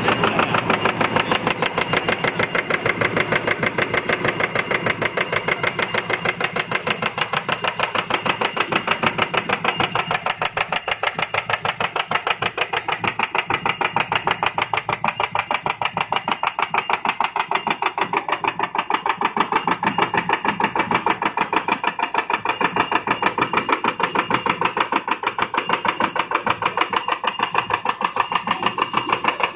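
DAKIOU JTCQ-D roll punching machine running at speed (rated 380 strokes a minute), its die punching cup-fan blanks from a printed paper roll: a fast, even clatter of about six strokes a second.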